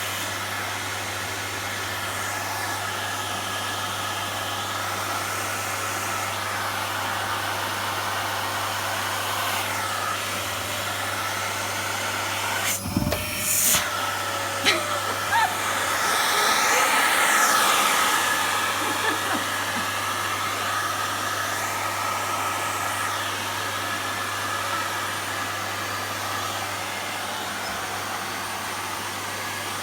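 Hand-held hair dryer blowing steadily during a blow-dry, its airflow shifting as it is moved over the hair. The sound swells louder for a few seconds past the middle.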